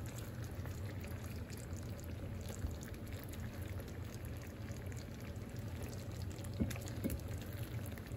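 Creamy sauce simmering in a frying pan while a spoon scoops it up and pours it back over chicken breasts, with a steady low hum under it and a couple of light taps near the end.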